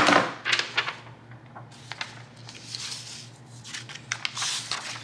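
Sheets of paper being handled and slid across a desk, in a few rustling bursts, the longest and loudest near the end. A low steady hum runs underneath.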